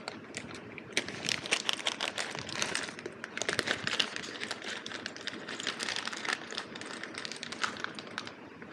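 Plastic packaging crinkling and rustling with many quick irregular clicks, as small parts are dug out of a bag by hand.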